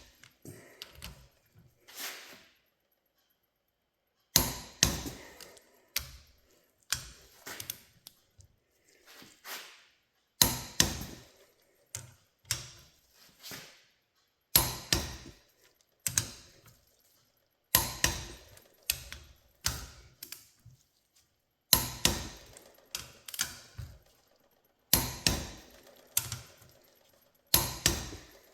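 Sharp metallic knocks and clicks from a wrench tightening the top cap bolts of a John Deere 4020 hydraulic pump, coming irregularly about every one to two seconds, each with a short ring.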